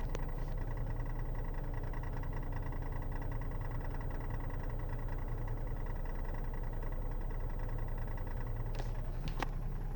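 2008 Ford Taurus X idling with the air conditioning on, heard from inside the cabin as a steady low hum, with a faint tick-rattle from behind the driver's-side dash that the owner suspects is transmission related. A couple of sharp clicks come near the end.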